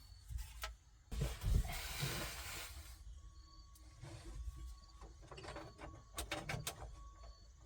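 Hand-handling of radio wiring and plastic connectors: a rustling scrape lasting about two seconds, then a run of small clicks and taps as the connectors are worked into place.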